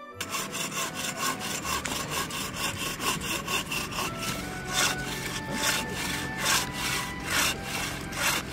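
Hand bow saw cutting through the trunk of a small fir tree in quick back-and-forth strokes. The strokes grow slower and louder from about halfway.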